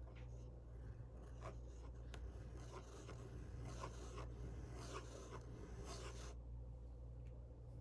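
Waterman 32A fountain pen's 14k gold flexible nib scratching across paper in a run of quick looping strokes, which stop about six seconds in.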